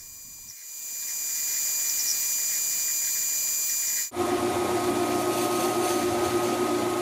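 Benchtop metal lathe turning steel round stock: a steady high hiss with held high tones that builds over the first second or so. About four seconds in it switches abruptly to a louder steady machine sound with several held lower tones.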